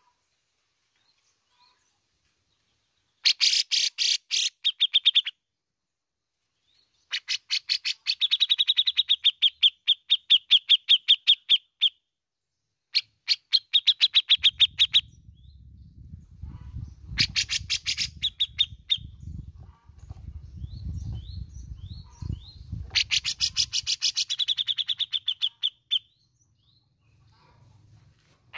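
Cucak jenggot (grey-cheeked bulbul) singing in bursts of very fast, rattling trills of repeated notes, five bursts of a few seconds each. A low rumble runs under the middle bursts.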